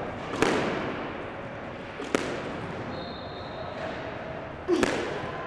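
Squash ball being struck with a racquet and hitting the court walls: three sharp cracks, one every two seconds or so, each with a short echo off the hard walls. A brief high squeak of court shoes on the wooden floor comes between the second and third hits.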